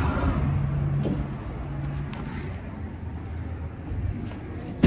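Low rumbling background noise with a steady low hum for the first two seconds, ending in one sharp knock.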